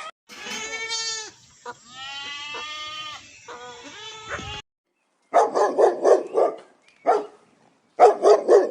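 Three long wavering bleats from a goat or sheep. After a short gap, a dog barks in quick runs of sharp barks.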